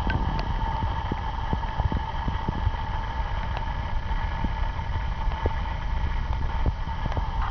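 Strong wind buffeting the camera microphone: a constant low rumble that swells and dips in gusts.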